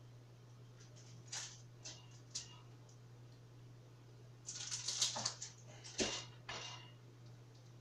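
Small kitchen items being handled on a counter: a few light knocks early on, then a busier run of clinks and clatter from about four and a half to nearly seven seconds in, over a steady low hum.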